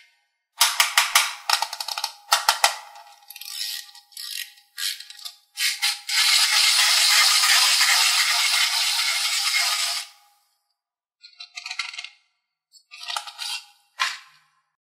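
Plastic toy rattling and clicking in quick irregular bunches, then a steady hiss lasting about four seconds, with a few more short rattles near the end.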